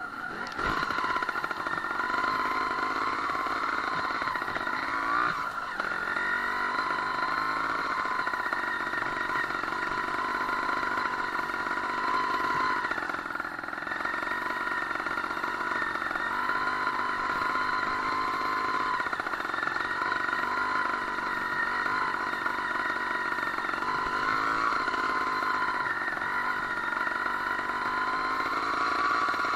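Sherco 290 single-cylinder two-stroke trials motorcycle engine running under way, heard from on board, its revs rising and falling with the throttle a few times and briefly easing off near the middle.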